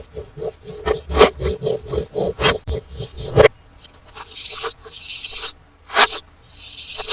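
Toy packaging rubbed and scraped close to the microphone: a quick run of scraping strokes, about six a second, for roughly three and a half seconds. Then come two short hissing rustles with a sharp click between them.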